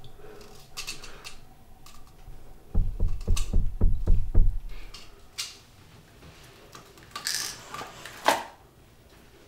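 Rapid heavy pounding on a door, about seven knocks in two seconds. Then small things are handled on a bathroom counter, with rustling and a sharp clatter near the end.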